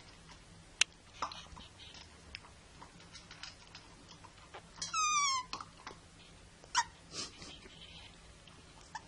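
Sussex Spaniel puppy eating dry kibble from a metal bowl: scattered clicks and crunches, the sharpest about a second in. About five seconds in there is a loud, high, wavering whine, and a shorter one near seven seconds.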